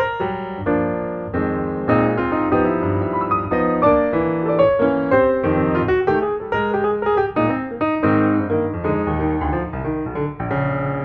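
Background piano music: a continuous run of notes, with no speech.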